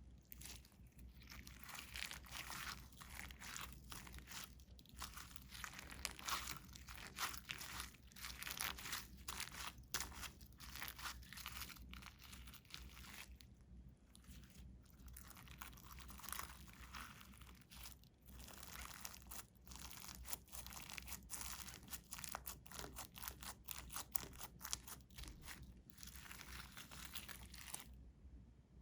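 Glitter slime being mixed and squished by hand: a steady run of wet, sticky clicks, pops and crackles, with a short pause about halfway.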